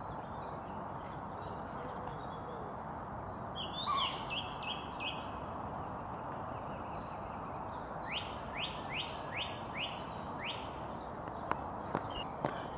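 Songbirds singing over a steady background hiss: a short run of repeated high notes about four seconds in, then a series of six quick falling notes from about eight to ten seconds. A few sharp clicks near the end.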